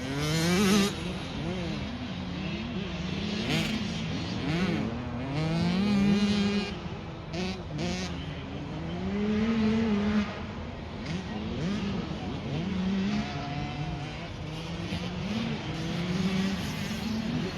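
Off-road racing Mini's engine revving hard and easing off over and over, its pitch climbing and dropping with throttle and gear changes.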